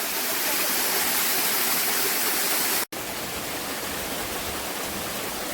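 Steady rushing of a waterfall. It breaks off for an instant about halfway through, then goes on a little quieter with more low rumble.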